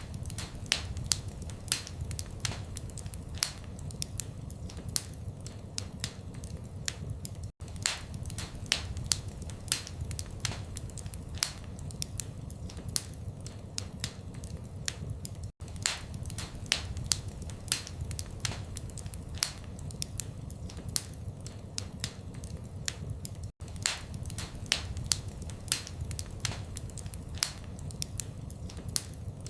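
Wood fire in a fireplace crackling: irregular sharp pops and snaps, several a second, over a steady low rumble of flame. The sound briefly cuts out three times, about every eight seconds, like the seam of a repeating loop.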